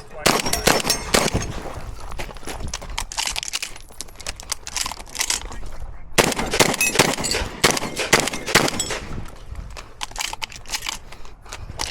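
Shotgun shots fired in quick strings during a tactical shotgun stage: dense clusters of shots near the start and again about six to nine seconds in, with a sparser stretch between.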